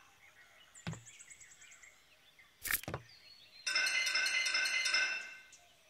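Cartoon hammering effects: a light tap about a second in and a hard double knock near the middle, like a mallet driving a nail into a wall, followed by a short phrase of music.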